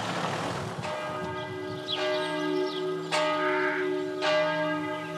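Church bell tolling: four strokes about a second apart, starting about a second in, each left ringing into the next.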